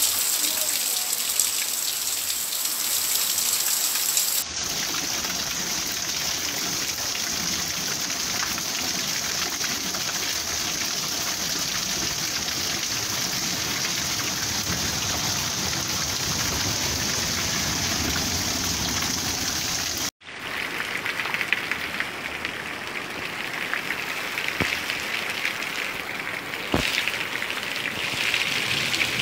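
Heavy rain falling steadily. It is heard in three recordings joined by abrupt cuts about 4 and 20 seconds in.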